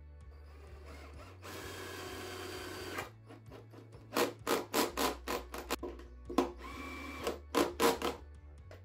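Makita cordless drill driving a screw through a chrome stair-edge trim into an MDF step. The drill runs steadily for about a second and a half, then comes a string of short, sharp bursts, then a brief run and three more bursts near the end as the screw is driven home.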